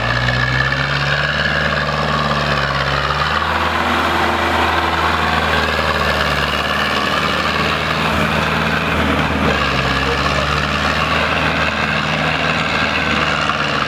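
A Zetor farm tractor's diesel engine working hard as the tractor drives through deep mud and climbs out. Its revs shift a few seconds in, then hold steady.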